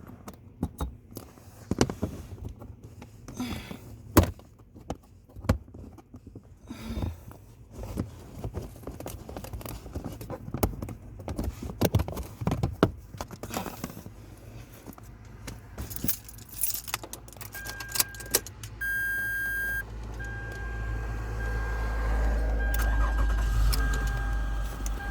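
Keys jangling and scattered clicks and knocks of handling inside a Toyota Sienna minivan, then from about 17 seconds in a repeated electronic beep from the car's warning chime, and a few seconds later the engine starts and runs steadily.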